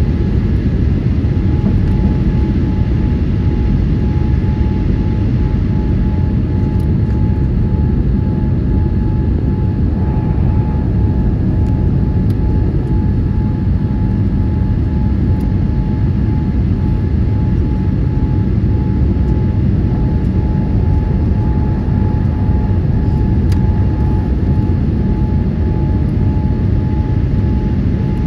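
Steady cabin roar of a Boeing 787-8 airliner's GEnx-1B turbofans and airflow, heard from inside the passenger cabin. A thin steady whine sits above the deep rumble.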